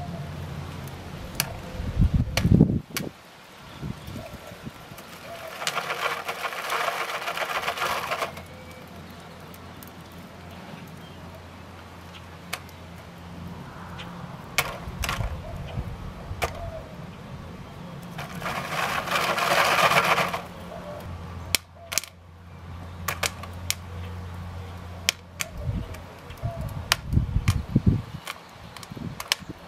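Scattered sharp crackles and pops from a wood fire in a clay chimenea, where a tinfoil pouch of popcorn is cooking on a rod over the flames. Twice a rushing noise swells for about two seconds.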